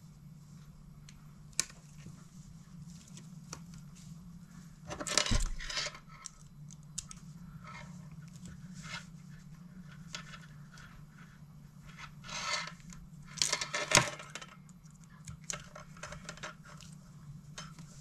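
Close handling of fishing line and a metal snap while a knot is tied and pulled tight with fishing pliers: short scraping rustles and small metallic clicks, the loudest about 5 and 14 seconds in, over a steady low hum.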